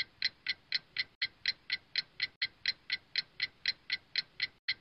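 Clock ticking sound effect: even, sharp ticks about four a second, standing for time passing during a long search.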